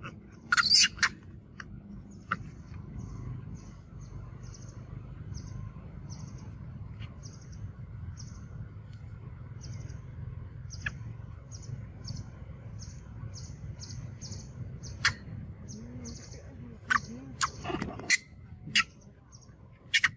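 A steady series of short, high chirps, about two a second, over a low steady rumble. A few sharp clicks cut in, the loudest just under a second in and several more near the end.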